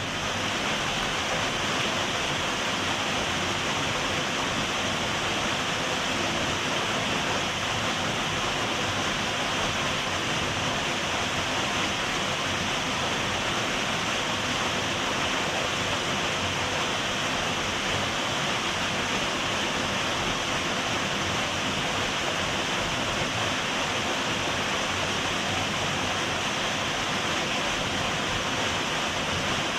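Waterfall: falling water rushing with a steady, even sound.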